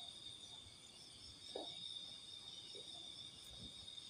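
Crickets chirping steadily in a faint high continuous drone, with a couple of soft knocks of a utensil against a pot.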